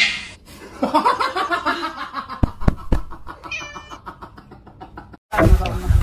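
A kitten meowing in several short cries, with a few light taps. About five seconds in, the sound cuts off and gives way to louder voices and noise.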